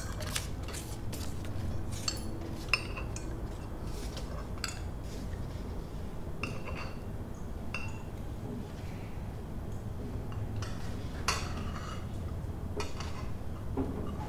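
Cutlery clinking against plates and bowls during a meal: irregular light clinks scattered throughout, the loudest about eleven seconds in, over a low steady hum.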